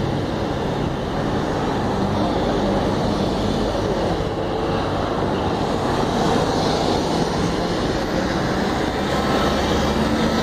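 Steady noise of road vehicles driving past: engines and tyres of a convoy of pickup trucks, an SUV and a van.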